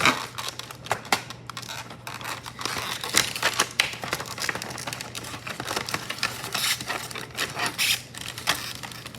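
Packaging of an HO scale model locomotive crinkling and clicking in irregular snaps and rustles as the model is worked free of its tight-fitting box.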